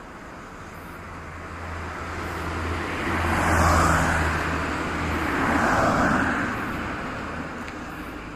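A road vehicle passing close by. Its engine hum and tyre noise swell to a peak about three and a half seconds in, peak again near six seconds, then fade.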